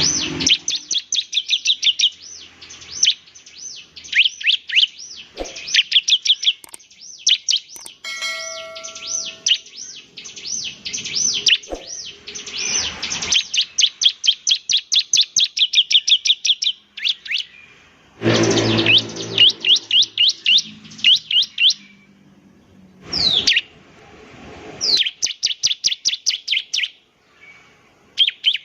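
Bar-winged prinia (ciblek) singing: long, fast runs of sharp, high chirping notes, several a second, broken by short pauses.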